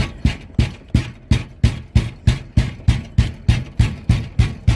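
Hand pounding on a locked glass door, a steady run of heavy bangs about three a second.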